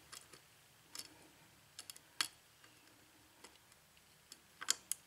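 Faint, scattered clicks of a hook pick and tension wrench working the pin stacks of an Ilco KIK pin-tumbler lock cylinder during single-pin picking, about one every second. The loudest comes a little after two seconds in, and a close pair near the end comes as the last pin, pin 2, sets and the lock opens.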